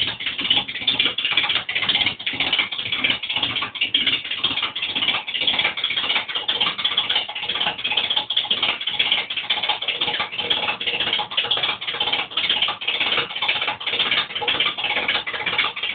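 Volkswagen Gol making a rapid ticking rattle, several ticks a second, an abnormal noise from the car.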